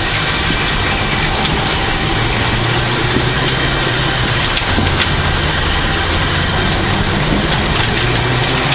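1989 Toyota Celica GT4's turbocharged four-cylinder engine pulling hard under the loud rush of gravel and road noise, heard from inside the car at stage speed. The engine note steps up and down a few times with throttle and gear changes, with scattered clicks of stones hitting the car.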